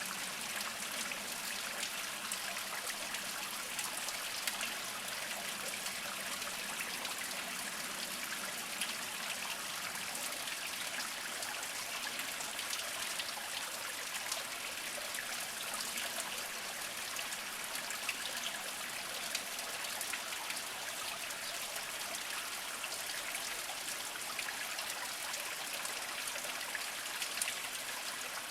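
Small spring-fed stream trickling and dribbling over mossy rocks: a steady, bright splashing with many small drips.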